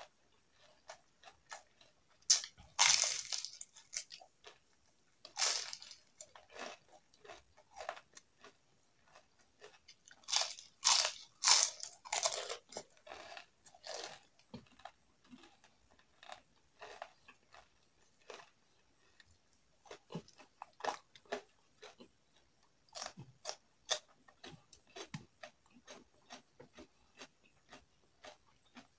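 Close-up chewing of crispy fried chicken skin: loud crackling crunches in several bursts, with quieter chewing clicks between them.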